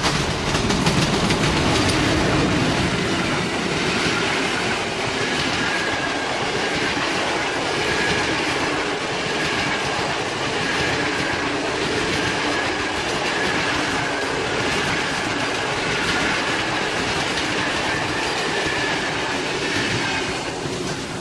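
A PKP Intercity express passing close by, hauled by an EP07 electric locomotive, then its long rake of passenger coaches: a loud, steady rush of wheels on rail with a regular clickety-clack over the rail joints and a faint steady whine.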